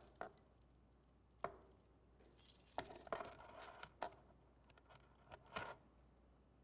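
A handful of faint clicks and light metallic clinks of small hard objects being handled, as a PGP key is fetched and plugged into a laptop.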